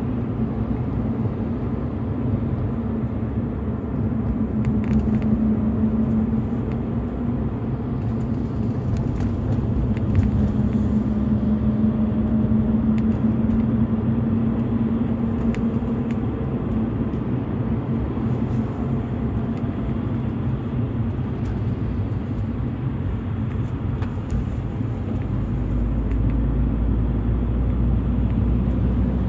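BMW E46 320i's 2.0-litre straight-six engine (M52TU B20, stock exhaust) running at a steady, near-constant pitch, with a deeper drone joining about 26 seconds in.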